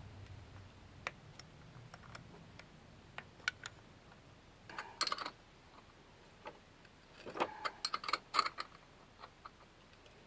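Scattered small clicks and taps of plastic and metal parts being handled while working on a steering column, with a quick cluster about halfway through and a busier run of clicks near the end.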